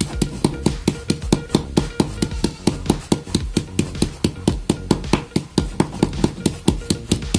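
Dried shrimp being crushed inside a plastic bag by a wooden stick: quick, even knocks, about four to five a second.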